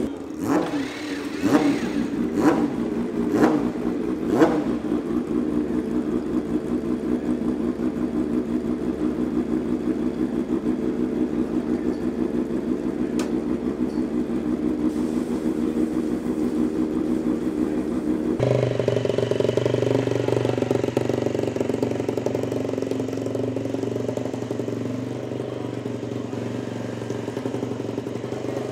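Kalex Moto2 racing motorcycle's Honda 600 cc inline-four engine running on its stand, blipped five times about once a second in the first few seconds, each blip with a sharp crack, then running steadily. About two-thirds of the way through, the sound cuts to the Mahindra Moto3 bike's 250 cc single-cylinder engine running, swelling a little and then settling.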